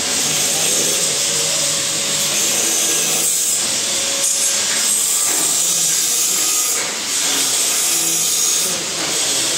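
A steady, loud hiss, with faint hums coming and going underneath and a brief dip about seven seconds in.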